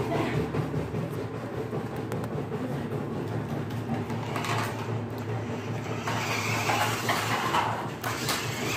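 Toy radio-controlled car running: a steady motor and gear whir, with louder, rougher stretches between about four and eight seconds in.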